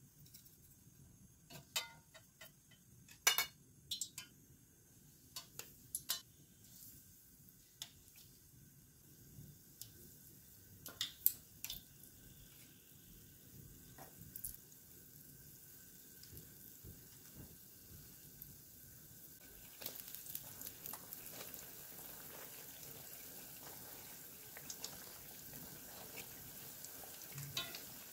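Glutinous-rice dumplings deep-frying in oil in a wok. Scattered sharp clicks and taps come in the first half, then a quiet, steady sizzle builds from about two-thirds of the way in.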